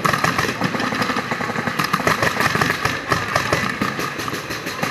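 Paintball markers firing in fast, unbroken strings of shots, many pops a second.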